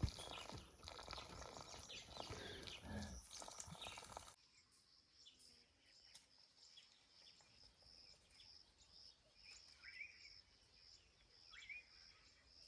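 Faint outdoor bush ambience with rustling and light clicks, which drops away abruptly about four seconds in. After that, a faint high call pulsing steadily and two short rising bird chirps near the end.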